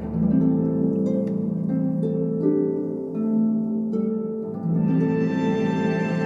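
Calm orchestral music: a slow melody of held notes over soft chords, the notes changing about once a second.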